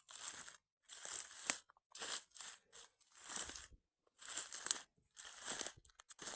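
Slow footsteps crunching through the pine-forest floor litter, about one step a second.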